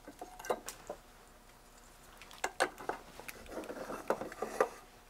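Scattered small clicks and light rattles of hands handling test leads and small parts on a workbench, with a busier run of clicks in the second half.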